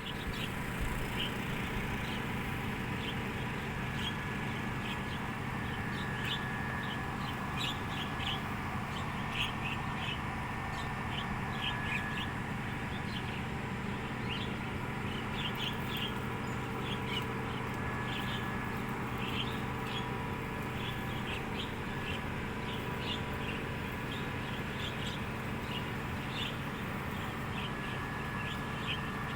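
A flock of hill mynas calling with many short, overlapping chirps and squawks throughout, over a steady low hum.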